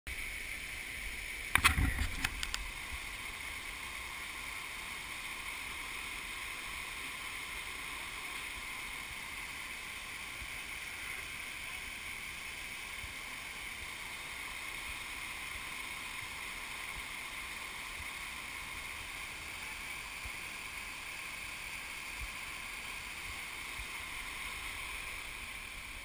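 Stream water rushing over rock cascades, a steady hiss. A quick cluster of loud knocks about two seconds in.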